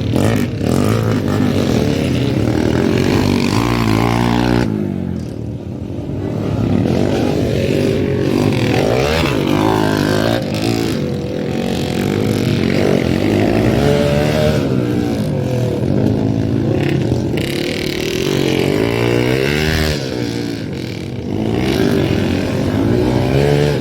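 Motocross dirt bike engines racing, their pitch rising and falling again and again as the riders rev up and ease off, with a brief lull about five seconds in.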